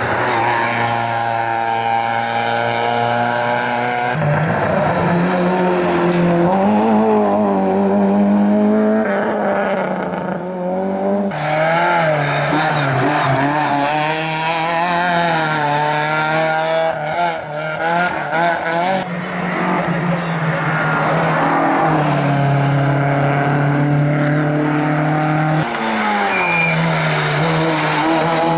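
Competition cars at racing speed, their engines revving up and falling back through gear changes. The sound shifts abruptly several times as one car gives way to another.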